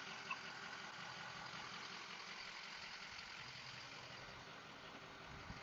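The truck's 6.0L Power Stroke V8 diesel idling steadily, heard faintly from the truck bed.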